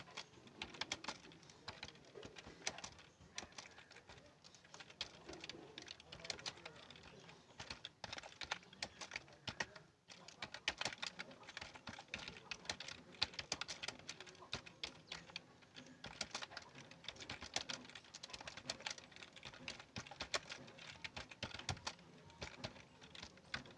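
Fast typing on a computer keyboard: a dense run of key clicks, several a second, that pauses briefly about ten seconds in.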